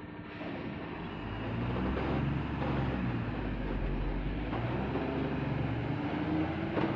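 Heavy Tata truck's diesel engine running and revving up and down, getting louder about a second in.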